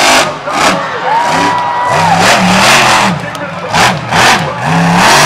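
Stone Crusher monster truck's supercharged V8 revving hard in repeated bursts, its pitch climbing and dropping several times, with a crowd cheering.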